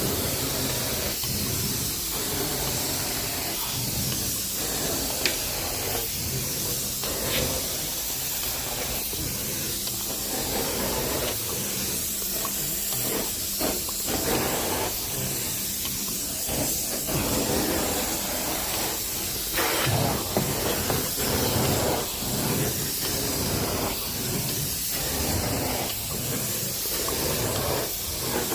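Carpet-cleaning extraction wand spraying and vacuuming water from the carpet: a steady hissing rush with a low hum under it that drops out about two-thirds of the way through.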